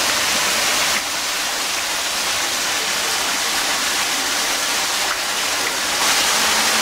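Steady rush of water falling from a rocky garden waterfall into its pond.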